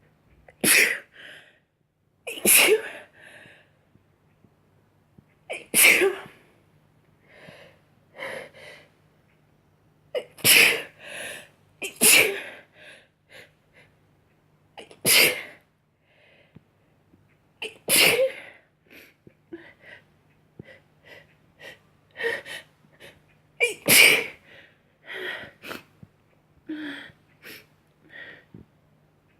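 A person sneezing again and again: about eight loud sneezes a couple of seconds apart, with sharp breaths and sniffles between them and a run of quicker, smaller sounds in the last few seconds. A faint low hum lies underneath.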